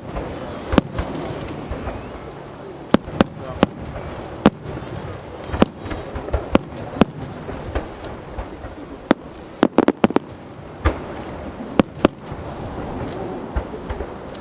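Aerial fireworks shells bursting in a string of sharp, unevenly spaced bangs, with a quick run of several bangs about two-thirds of the way through.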